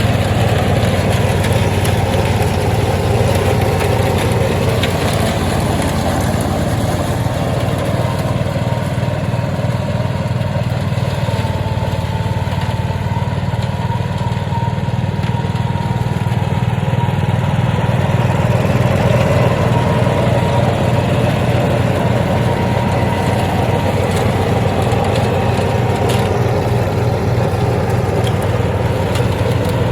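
Petrol engine of a GL 1200L flail mower running steadily, getting slightly louder about two-thirds of the way through.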